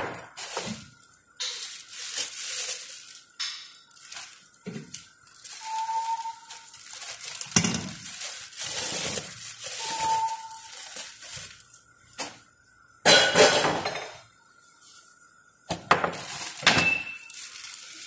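Food-preparation handling noise: plastic gloves and a plastic bag rustling and crinkling, with occasional clinks of dishes, coming in irregular bursts with short pauses between them.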